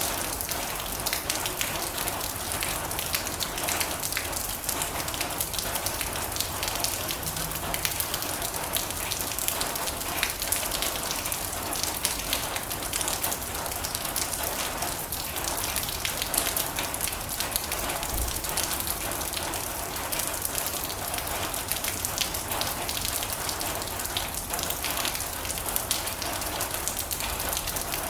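Heavy rain falling on a metal roof: a steady, dense patter of many drops striking the sheet metal.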